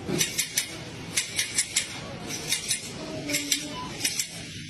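A string of light, sharp clinks in small groups of two or three, about three a second, over a low background hum.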